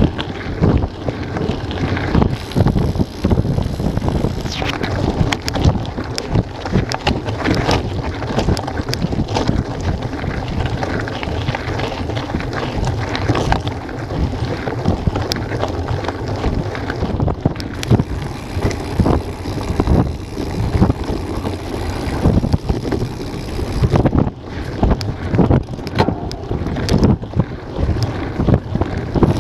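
Wind buffeting a bike-mounted action camera's microphone as a mountain bike is ridden over dirt and gravel trail, with frequent knocks and rattles from the bike jolting over the rough ground.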